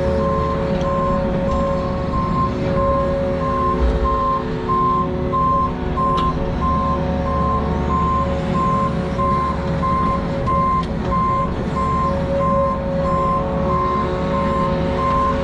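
Backup alarm on heavy earthmoving equipment beeping steadily about twice a second, over the low rumble of a diesel engine running.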